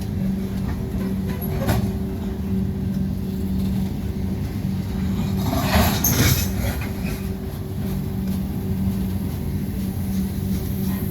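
BNSF coal train rolling past on the rails, with a steady low hum and rumble and a louder rattling clatter of cars about six seconds in.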